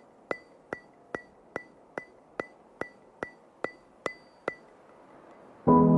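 Regular ticking, about two and a half sharp clicks a second, each with a faint high ring. The ticking stops about four and a half seconds in, and music with sustained chords starts loudly near the end.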